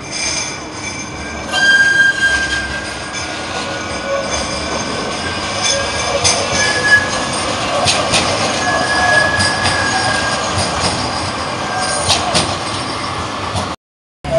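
A pair of coupled Manchester Metrolink M5000 trams running past close by on street track. High-pitched steady squealing tones come and go over the running noise, with a few sharp clicks. The sound cuts out briefly near the end.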